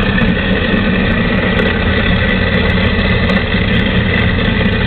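Kitchen sink garbage disposal motor running steadily with broccoli in it, a constant hum with a whine on top, not grinding it down well.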